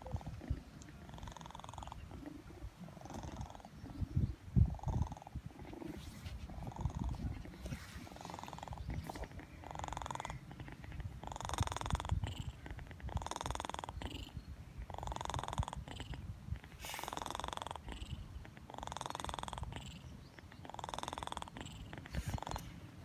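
Snoring: a slow, even run of rasping breaths about every two seconds, growing louder about halfway through, over a low rumble.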